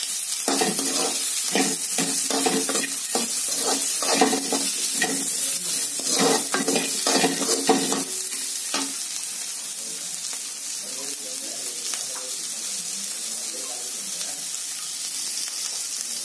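Sliced onions sizzling in hot oil in a kadai. A steel spatula scrapes and knocks against the pan about twice a second as it stirs, stopping about eight seconds in while the sizzle goes on.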